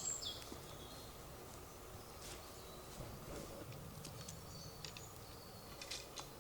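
Quiet woodland ambience with a few faint, short, high bird chirps in the second half.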